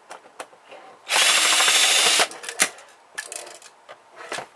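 A power drill spinning in one steady burst of about a second, stopping suddenly, amid small clicks and taps of parts being handled.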